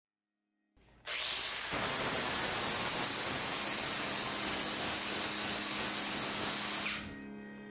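Angle grinder disc working against steel: a loud, dense hiss with a faint high whine through it, starting about a second in and cutting off sharply near the end.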